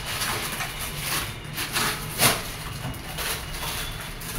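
A kitchen cabinet being wiped down by hand: several short rubbing strokes of a cloth on the cabinet doors, the loudest a little past the middle, over a steady background hiss.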